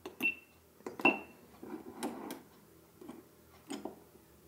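Shutter buttons on a row of GoPro Hero 10, 11 and 12 action cameras clicked one after another to start recording, with two short high beeps from the cameras in the first second or so, then lighter clicks and taps as the remaining cameras are pressed.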